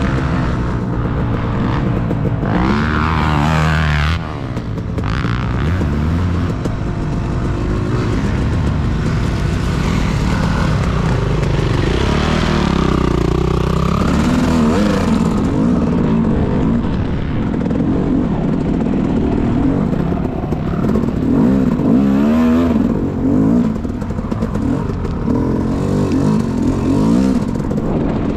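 Motocross dirt bike engine revving up and down as it is ridden, its pitch climbing and dropping repeatedly with throttle and gear changes.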